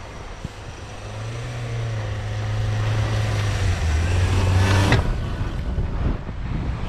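Ford Ranger pickup's engine pulling through deep snow, growing louder as it comes up close; the revs step up about a second in. A short sharp noise stands out about five seconds in.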